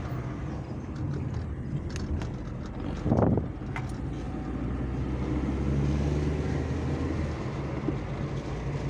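Volkswagen Fox on the move, heard from inside the cabin: steady engine and road noise, with one brief louder sound about three seconds in and the engine pulling harder for a couple of seconds past the middle.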